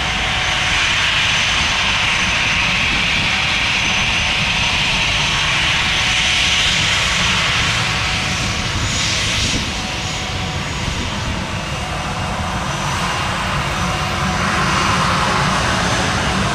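Airbus A320 jet engines running at taxi power: a steady high whine over a low rumble, dipping a little about ten seconds in and swelling again near the end.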